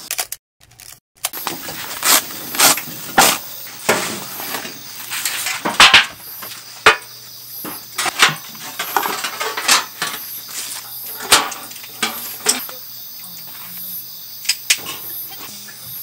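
Irregular knocks, clicks and rustling of camping gear being handled and set down on a wooden deck, with crickets chirping steadily in the background.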